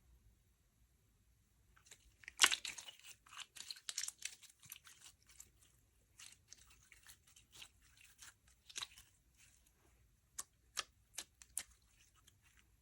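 Slime being worked by hand, giving a run of crackling clicks that starts about two seconds in and thins out, then four sharp separate clicks near the end.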